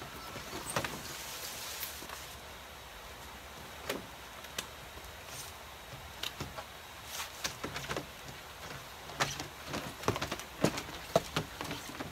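Seedling heat mat being unrolled and slid across a foam insulation board: rustling and sliding with scattered light clicks and taps, busier in the second half.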